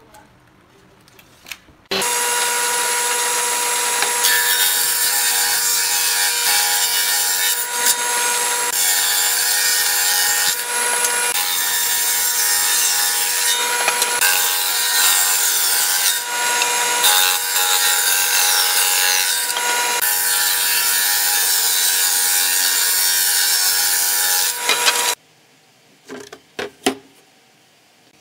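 Hitachi table saw running and cutting a wooden board: the noise of the blade in the wood over a steady motor whine. It starts abruptly about two seconds in and cuts off abruptly near the end, followed by a few light knocks.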